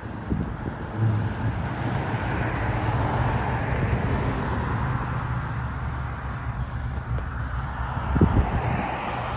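A car engine running steadily, with a brief louder surge about eight seconds in.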